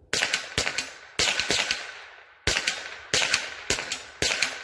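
Rossi RS22 semi-automatic .22 LR rifle firing 40-grain Federal Premium Hunter Match rounds: about seven shots, roughly two a second with a pause of about a second near the middle, each cracking and echoing briefly. The blowback action cycles every round, feeding the next without a hitch.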